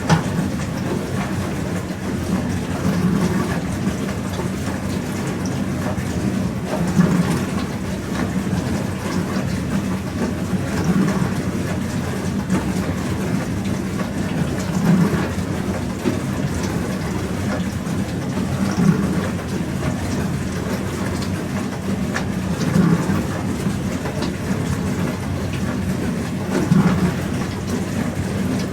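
Pro Action PRSLG96W slimline dishwasher running a wash: a steady rush of spraying water over the pump's low hum, which swells evenly about every four seconds.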